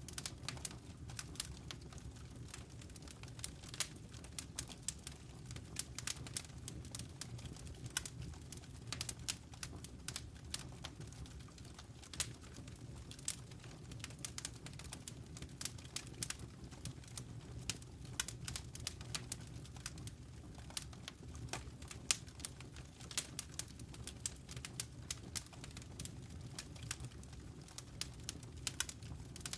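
Wood fire crackling in a fireplace: many small, irregular pops and snaps over a low, steady rumble of the flames.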